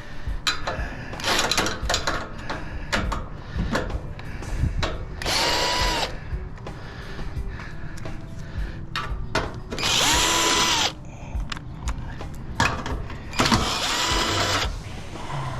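A power drill/driver runs three times for about a second each, with a pitched whine, backing screws out of a PTAC air-conditioner's sheet-metal casing. Clicks and metal clatter come from the parts being handled between runs.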